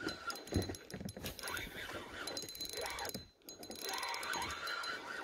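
Spinning reel being cranked, a fast run of fine clicks with a thin whine, as a hooked fish is reeled in; the cranking pauses briefly about three seconds in.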